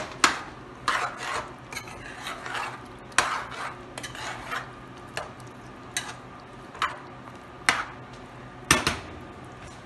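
A metal spoon stirring chicken stew in a pan, scraping and knocking against the pan about ten times at uneven intervals.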